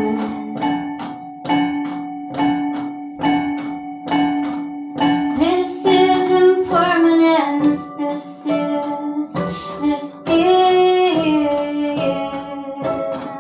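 A plucked string instrument played in a steady repeating pattern over a sustained drone note, with a woman's wordless voice holding two long sung notes, one midway and one near the end.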